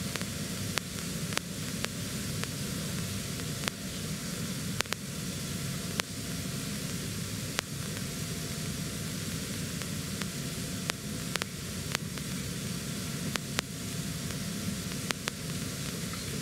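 Steady static hiss with a low rumble, broken by scattered sharp clicks: the noise of a turned-up microphone in a quiet room.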